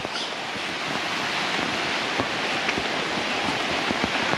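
Heavy rain falling steadily, a dense even hiss with many scattered close drop hits ticking through it.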